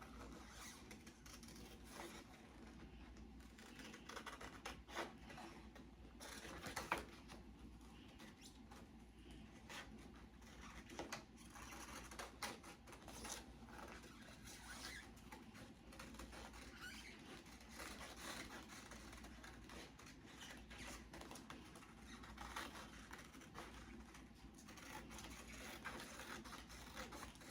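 Faint, irregular snips and paper rustles of scissors cutting out printed paper pieces by hand.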